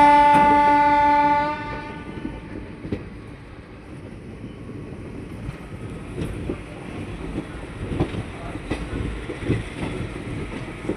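Nandigram Express locomotive horn sounding one steady blast that cuts off about a second and a half in. After it the train runs along the track, rumbling, with wheels knocking over rail joints at uneven intervals.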